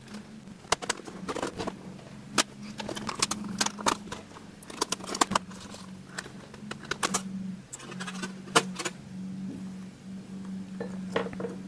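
Plastic keyboard frame of a Dell Latitude 5490 laptop being pried up with a spudger and lifted off: an irregular string of sharp clicks and snaps as its clips release, over a faint steady hum.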